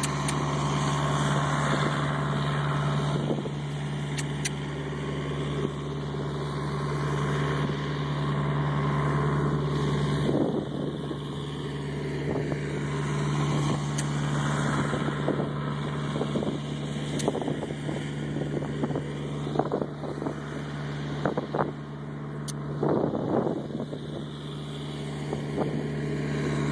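Farm tractor engine running steadily while plowing the field, a constant low drone, with wind on the microphone.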